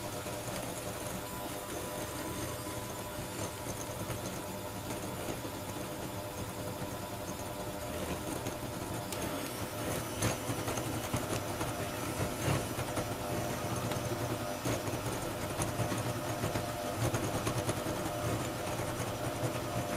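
Electric hand mixer running steadily, its beaters whisking egg yolks and sugar in a glass bowl until pale and fluffy, with a few light clicks along the way.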